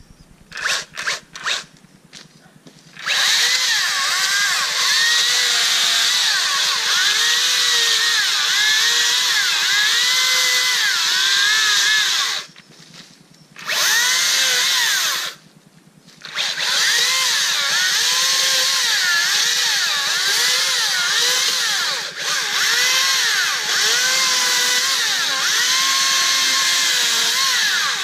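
Makita DUC353 cordless brushless 36-volt electric chainsaw pruning branches. After a few short trigger blips it runs with a steady electric whine whose pitch dips again and again as the chain loads up in the cut. It stops twice briefly and starts again.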